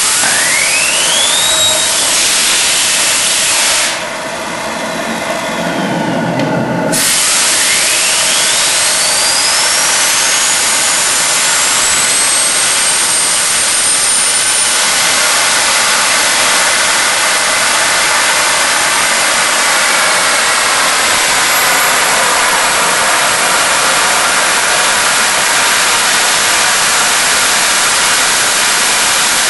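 Home-built propane-fuelled turbojet made from a Garrett turbocharger, starting up and spooling. A loud steady rush carries a turbine whine that rises twice: briefly at first, then after a quieter patch a few seconds in, climbing steeply to a very high pitch and holding steady there.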